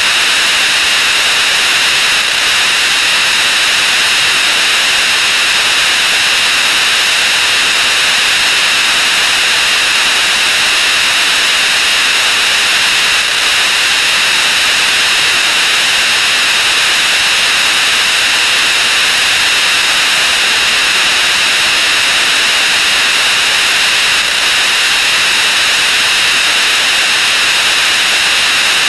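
A loud, steady wall of harsh hiss-like noise, strongest in the upper-middle range: a great many sound effects layered on top of one another and sped up 64 times until they blur into one continuous roar.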